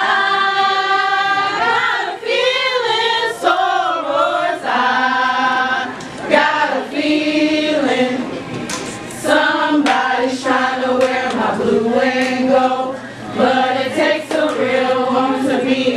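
A group of women singing together a cappella in long held notes that bend up and down, phrase after phrase with short breaks between them: a sorority group song.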